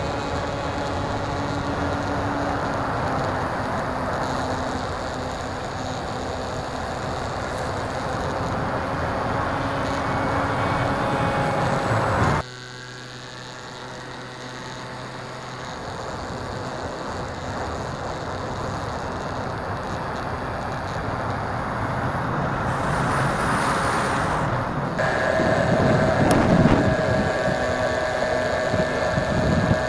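Skywalker 1880 RC plane's AX2814 brushless electric motor and APC 9x6 pusher propeller droning in flight, a steady noisy whine with a few held tones. The level drops suddenly about twelve seconds in, and near the end the whine comes back louder and higher.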